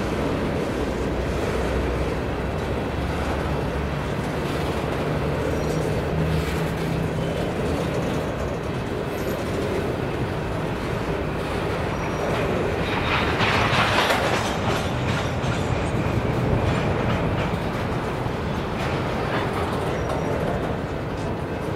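Empty covered hopper cars of a freight grain train rolling past on jointed track, a steady rumble and rattle of steel wheels on the rails. It swells louder for a couple of seconds just past halfway as a car goes by close.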